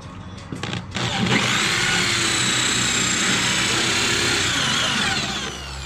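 Corded DeWalt drill spinning a hole saw through a plastic tweeter mounting plate. A few clicks come first, then the drill runs steadily under load from about a second in. Near the end its pitch falls as it winds down.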